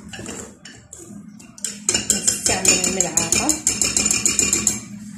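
Wire whisk beating cake batter in a glass bowl, its wires clinking rapidly against the glass from about two seconds in until near the end, after a softer start of stirring.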